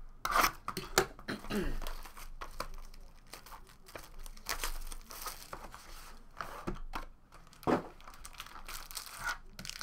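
Trading-card box being unsealed and opened by hand: packaging crinkling and tearing, with a scatter of short sharp clicks and rustles as the box is handled.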